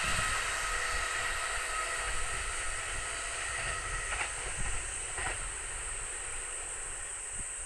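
A 209-series electric train's running noise dying away steadily as it moves off, with a steady high hiss underneath.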